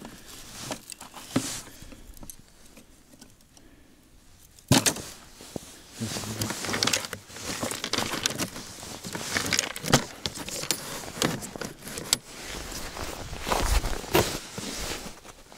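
Hands rummaging in a plastic fishing tackle box: scattered clicks, knocks and rattles of small plastic gear and a winter fishing rod being handled, with glove and jacket rustle. It is sparse for the first few seconds and much busier from about five seconds in.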